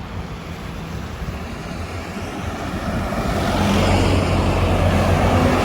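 Large diesel intercity bus approaching and passing close by: a low engine drone and tyre and air noise that grow louder over the first three or four seconds and stay loud to the end, with no horn sounded.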